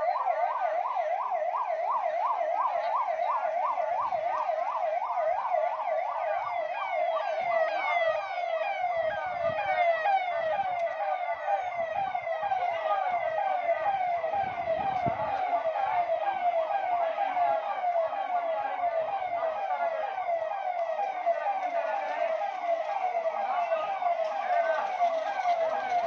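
Emergency vehicle siren sounding continuously in a fast yelp, the pitch sweeping up and dropping back about three to four times a second.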